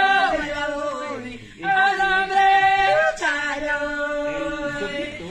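Women singing a warawi, the traditional unaccompanied Andean song, in long, high held notes, with a short break about a second and a half in.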